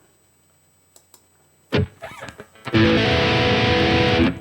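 Electric guitar played through a modeling unit's crunch amp tone: near silence at first, then a short picked chord that quickly fades, and just under three seconds in a full strummed chord held for about a second and a half before being muted abruptly.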